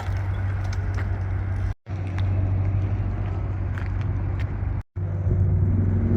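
Steady rumble of car traffic on a road, cutting out sharply twice where short clips are spliced together.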